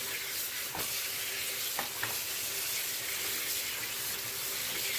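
Kitchen tap running steadily onto freshly dyed wool in a stainless steel sink, with water splashing as the wet wool is squeezed and rinsed by hand. A couple of faint knocks about one and two seconds in.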